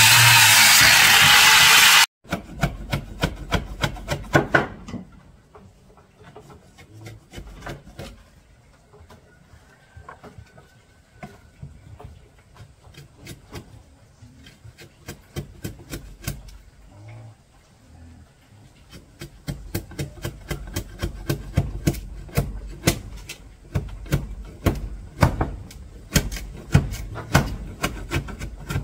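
Hand tools working wood: sharp knocks and scraping strokes, sparse through the middle and quickening near the end to a steady run of several strokes a second. It opens with about two seconds of loud music that cuts off suddenly.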